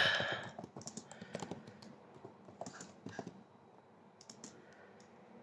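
A short breath right at the start, then light taps and clicks at irregular intervals from handling the hand-held phone that is recording, thinning out toward the end.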